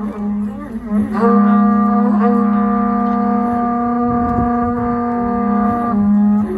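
A wind instrument holds a long, steady low note with a reedy, buzzing tone. It breaks off briefly about a second in, then comes back, and dips again near the end.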